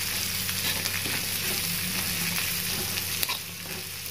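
Jengkol stir-fry sizzling in a wide metal wok as a metal spatula stirs and scrapes through it, with a few sharp clicks of the spatula against the pan.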